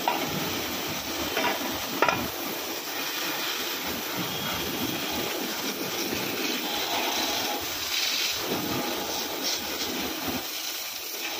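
High-pressure water jet spraying onto a stripped Hyundai Xcent engine block and crankshaft: a steady hiss and splatter of water, with one brief sharp click about two seconds in.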